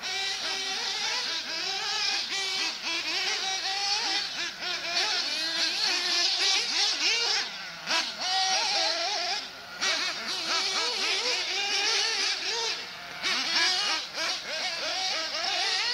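Small two-stroke glow engines of 1/8-scale nitro RC buggies, a Kyosho MP9 Inferno and a Losi, revving and backing off as they lap. More than one engine is heard at once, with a high whine whose pitch rises and falls constantly. The sound drops briefly about 8, 10 and 13 seconds in.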